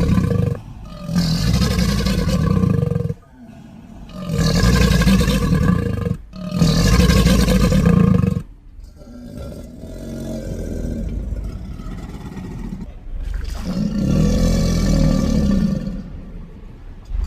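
A crocodilian giving a series of deep calls: loud bouts of about two seconds each, with a softer, longer one in the middle.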